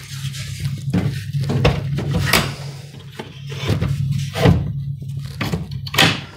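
Wooden paint rack knocking and clunking against the spray booth's panels as it is fitted into place, about six separate knocks, over a steady low hum.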